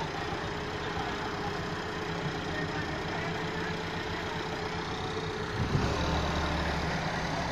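Massey Ferguson 375 tractor's four-cylinder diesel engine running steadily, its note changing and growing louder, with more low rumble, a little under six seconds in.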